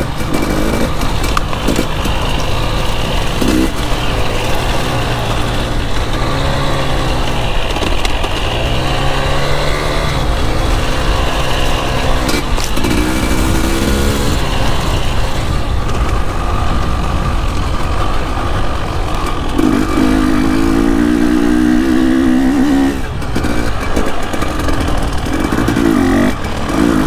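KTM 300 EXC two-stroke dirt bike engine being ridden hard, its revs rising and falling over and over as the throttle is opened and shut, over a constant rush of riding noise.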